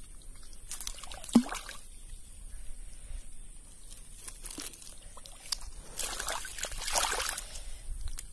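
Crackling of dry straw and wet squelches of mud as an Asian swamp eel on a fishing line is handled and drawn out of its burrow, with one sharp click about a second and a half in.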